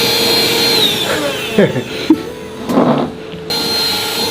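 Handheld vacuum cleaner's motor running with a steady high whine, switched off about a second in and winding down with a falling pitch, then a few handling knocks, and switched back on near the end.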